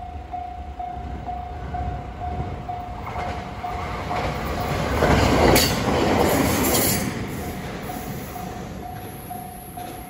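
A JR West 521 series electric multiple unit approaches and passes close by, building to its loudest about five to seven seconds in, then fading away. A level-crossing alarm rings throughout in a steady repeated tone, about twice a second.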